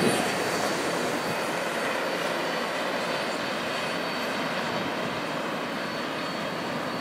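A Canadian Pacific double-stack intermodal train running away down the line: a steady, distant rumble that eases off in the first second and then holds, with a thin, faint high tone over it.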